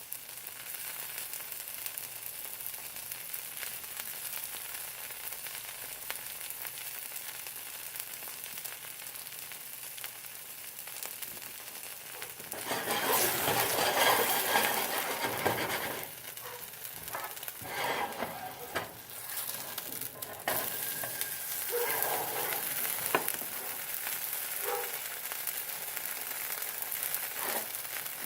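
Cheese-filled arepa sizzling steadily in a dry pan, frying in the fat that drains from its cheese. About twelve seconds in, the sizzle turns louder and rougher for a few seconds, followed by scattered knocks and scrapes.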